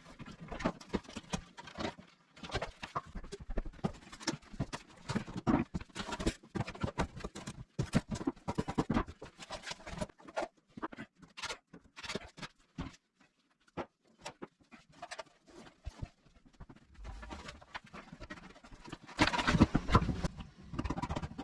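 Scattered clicks, taps and rustles of hands and tools working on wiring and an electric panel, with a louder stretch of knocking and scraping near the end.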